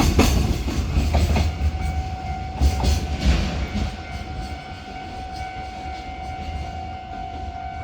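Container freight train's wagons passing, wheels clattering over rail joints, with loud strikes until about four seconds in and then quieter. A steady high tone comes in about one and a half seconds in and holds.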